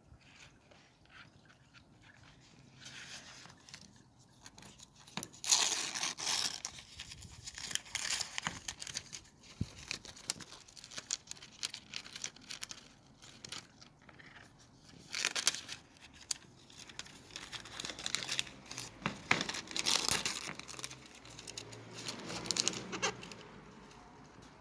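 Paper and plastic phone packaging crinkling and tearing in irregular bursts, handled and pecked at as the box is unpacked.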